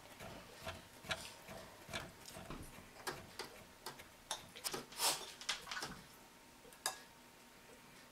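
Faint, irregular light taps and clicks as raw chicken strips are laid one by one onto the plastic mesh tray of a food dehydrator, stopping about seven seconds in.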